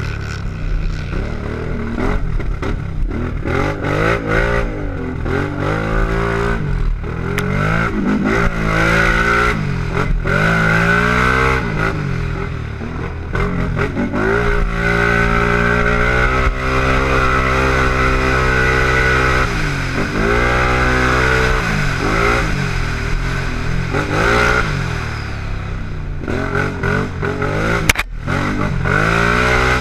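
Can-Am race quad's engine revving hard at racing speed, its pitch climbing and dropping again and again as it accelerates and shifts, held high and steady for several seconds mid-way. A single sharp knock near the end.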